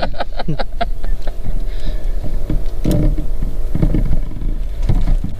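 Boat motor running steadily at trolling speed as a low rumble. In the first second a fast run of clicks comes from the fishing reel as line is let out, and a few softer knocks follow later.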